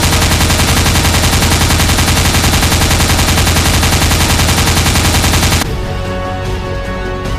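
Rapid automatic gunfire, a machine-gun sound effect firing in one long unbroken burst that stops suddenly about five and a half seconds in. Music with a steady beat takes over for the rest.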